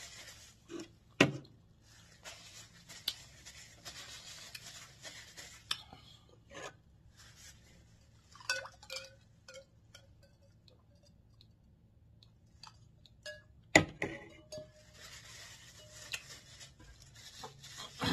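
Close-miked table sounds from eating a seafood boil: rustling, scattered clinks of glassware and dishes, and two sharp knocks, one about a second in and one near fourteen seconds.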